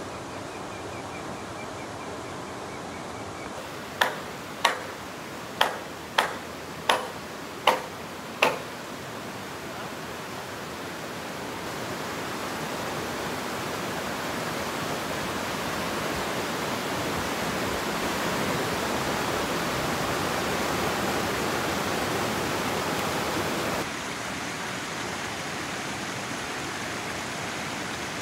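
Steady rushing noise like running water, with seven sharp, ringing strikes a little under a second apart about four to eight seconds in. The rushing swells through the middle and drops abruptly near the end.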